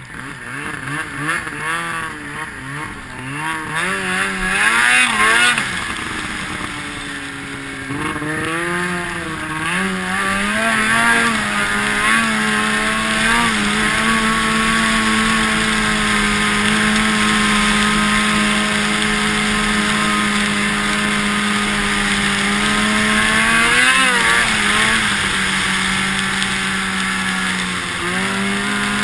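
Ski-Doo MXZ X-RS 800's two-stroke Rotax engine revving up and down on and off the throttle for about ten seconds, then running at a steady high pitch for most of the rest, with a short dip and rise twice near the end.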